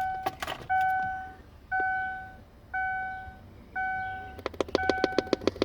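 Electronic beeps repeating about once a second in a 2002 Lincoln LS with the key in the ignition, joined about four seconds in by a rapid popping, roughly ten clicks a second, from a speaker under the dash: a fault noise that stops when that speaker is unplugged.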